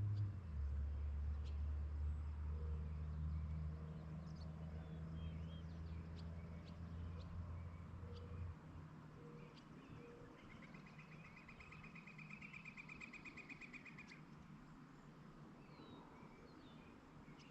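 Evening countryside ambience: scattered short bird chirps, and a rapid trill that runs for about four seconds just past the middle. The loudest sound is a low droning hum that stops about eight seconds in.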